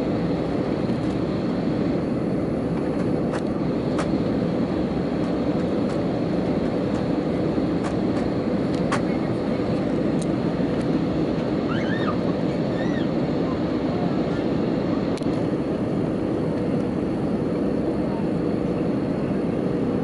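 Steady cabin noise inside an Airbus A321 airliner descending on approach with its flaps out: an even rush of engine and airflow noise with a faint steady hum.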